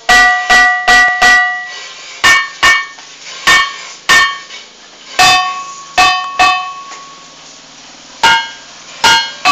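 Batu talempong ringing stones (a stone lithophone) being struck, each strike giving a ringing, bell-like tone that dies away, the stones sounding at several different pitches. A quick run of five strikes opens the passage, then single strikes come spaced out, with a pause of nearly two seconds before the last two.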